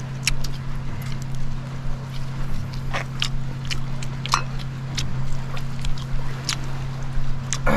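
An engine running at a steady low hum, with scattered short clicks and taps over it.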